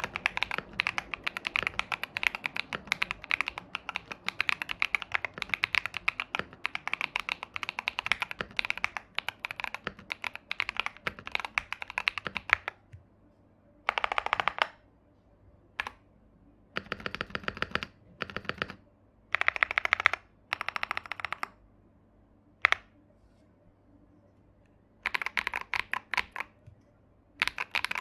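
Typing on a Tofu65 mechanical keyboard with Akko V3 Cream Blue tactile switches, a creamy, poppy keystroke sound. The typing is steady for roughly the first half. After that it comes in short bursts of rapid keystrokes separated by pauses, with one sharp single keystroke among them.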